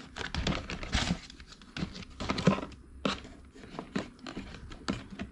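Packaging of a self-heating hot pot kit being handled and unwrapped: plastic crinkling and tearing, with irregular clicks and taps.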